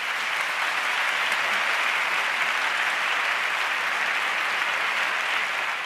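Audience applauding: a dense, steady clapping.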